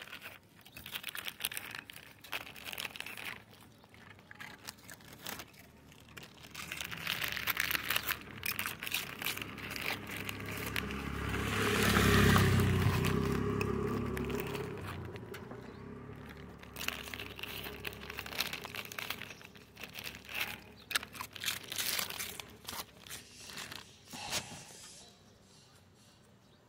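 Rustling and crinkling handling noise with many scattered clicks. About halfway through, a low drone swells up and fades away again.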